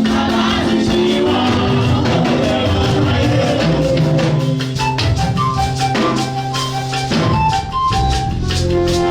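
Gospel music played with a drum kit and percussion, held notes over a regular beat.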